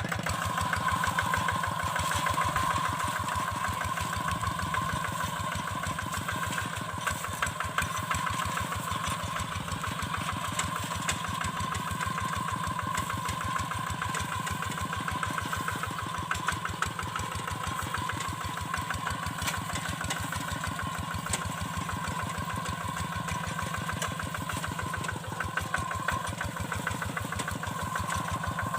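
Kubota single-cylinder diesel engine of a walk-behind hand tractor running steadily with a fast, even firing beat and a steady high whine over it.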